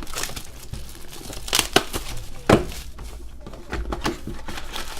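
Plastic wrapping on trading-card packaging being crinkled and torn open, with two louder sharp snaps about halfway through.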